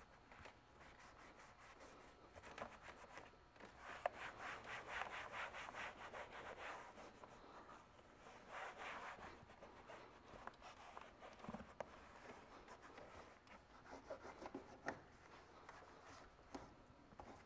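Shop towel rubbing over engine-bay plastic, spreading dressing: faint, quick back-and-forth wiping strokes for a few seconds, a shorter bout after, and a few light clicks.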